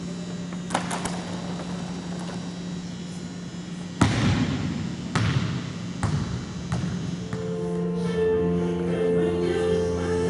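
A basketball bouncing on a gym's wooden court: one hard bounce about four seconds in, then three weaker ones coming closer together as it settles, over a steady low hum. Music comes in a little after seven seconds.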